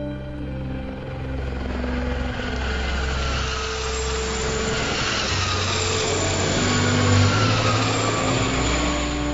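Aérospatiale Gazelle helicopter flying past overhead: rotor and turbine noise, its turbine whine falling in pitch as it passes and loudest about seven seconds in.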